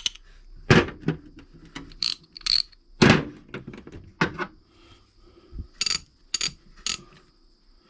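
Old Snap-on hand ratchet wrenches being worked and handled: irregular metal clicks and clacks, with three sharp ringing metal clicks close together about six seconds in.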